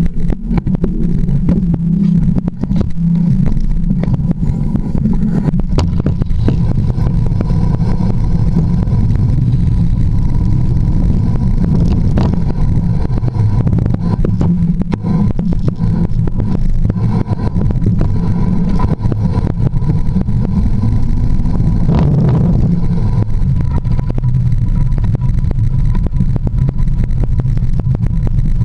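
Mountain bike rolling over a rough trail, heard through a camera mounted on the fork: a steady low rumble with frequent knocks and rattles as the wheel jolts over roots and stones.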